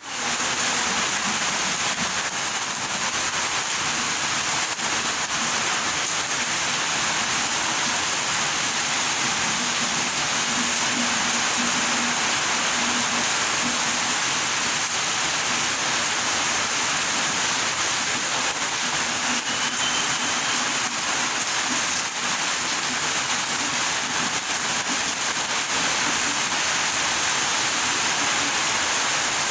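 Steady rain falling, a dense, even hiss that holds constant throughout.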